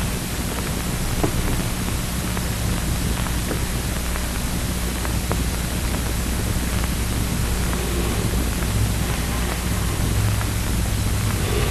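Steady, even hiss of noise with a low hum underneath.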